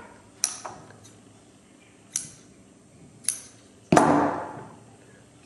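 Scissors snipping twine: several short, sharp metallic snips, then a louder knock about four seconds in that dies away over about a second.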